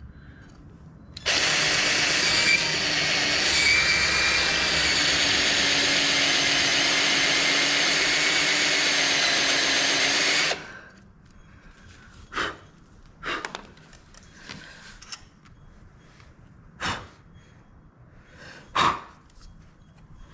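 Cordless drill running steadily with a spot-weld drill bit, cutting out the tack weld on the bolt that holds the exhaust baffle; it starts about a second in and stops about ten seconds in. A few short, light knocks follow.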